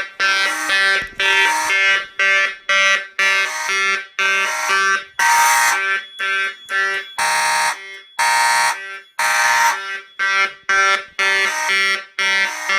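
Fire alarm horns on a Fire-Lite MS-5024 panel system, among them a Simplex 2901-9806 horn, sounding in alarm after the smoke detector is activated. Loud, blaring pulsed blasts come about two to three a second, uneven in length and overlapping, as more than one horn sounds out of step.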